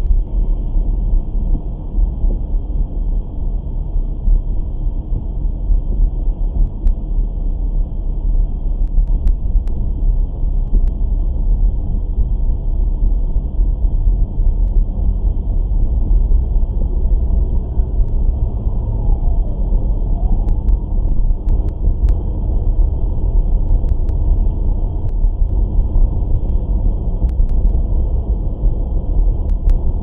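Steady low rumble of a SAAB 9-4X's engine and tyres on a wet road, as heard inside the car's cabin. Past halfway a faint tone glides down and back up over a few seconds.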